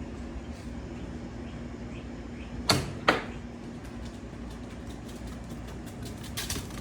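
Two sharp knocks about half a second apart, then a brief rustling clatter near the end, over a steady low hum.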